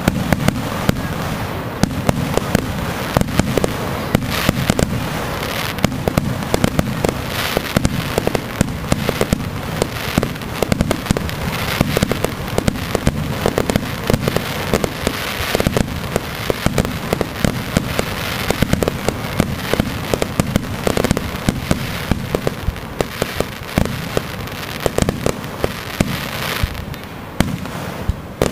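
Aerial fireworks going off in quick, continuous succession: a dense barrage of booming shell bursts and sharp crackling reports with no break.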